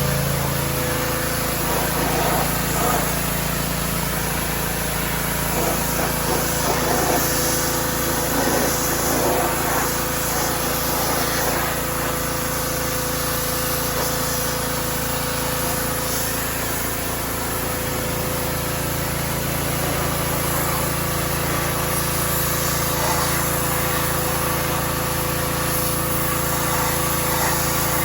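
Pressure washer running steadily, its motor drone under the loud hiss of the water jet spraying the house's dirty exterior.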